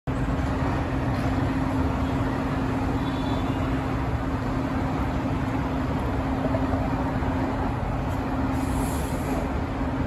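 Fire engine and ladder truck diesel engines idling in the station bay: a steady rumbling hum with one constant tone. A short hiss near the end.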